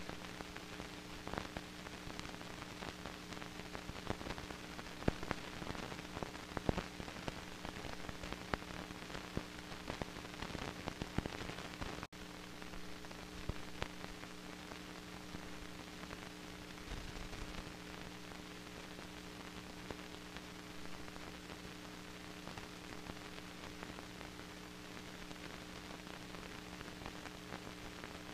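Worn film soundtrack noise: steady hiss and a low electrical hum, with scattered crackles and pops that are thickest in the first twelve seconds. The sound drops out for an instant about twelve seconds in.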